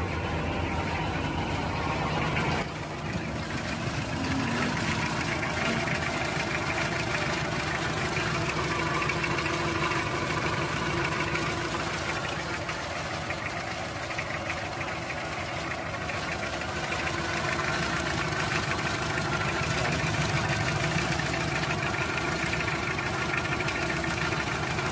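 Toyota 2C four-cylinder diesel engine idling roughly with a steady clatter. The shaking idle is what the owner suspects comes from injectors spraying unevenly, and pumping the fuel primer does not cure it.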